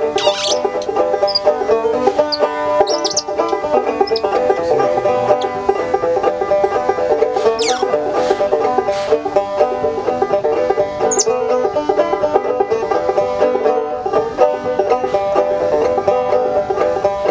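Banjo picked in a bluegrass style. A few short, high-pitched squeals from a capuchin monkey cut in over it, about half a second in, around three seconds, near eight seconds and again at eleven.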